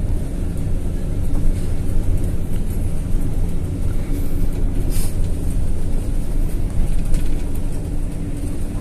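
Bus engine and road noise heard from inside the cabin while under way: a steady low rumble.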